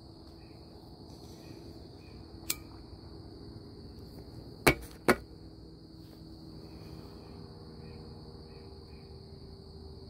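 Steady high-pitched insect chorus, likely crickets, over a faint low hum. There is a light tick about two and a half seconds in, and two loud sharp clicks close together around the middle.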